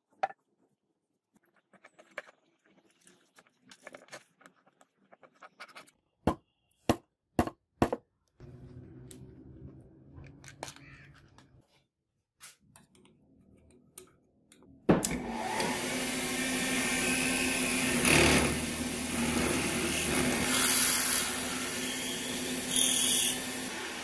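Sharp clicks and knocks at first, then about fifteen seconds in a drill press starts suddenly, loud and steady, with a twist drill cutting into a brass hex nut held in a machine vise.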